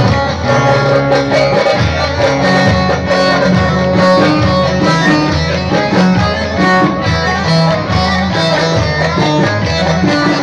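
Live band playing amplified Turkish folk dance music through loudspeakers: a plucked-string lead over a steady, repeating bass beat.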